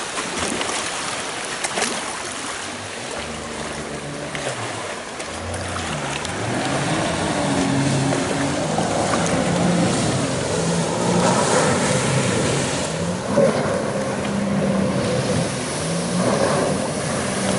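An engine revving up and down repeatedly over the rush and splash of churned water.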